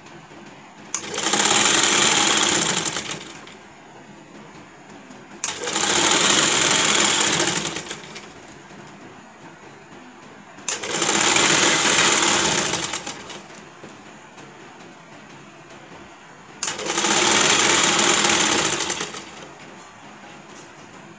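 Sewing machine stitching lace trim onto net fabric in four runs of about two to three seconds each, stopping between them.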